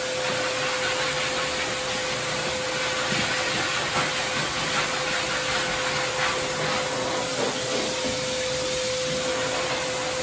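Dog-wash station's blow dryer running steadily, air rushing from the hose nozzle over a wet dog's coat, with a steady hum from the blower motor.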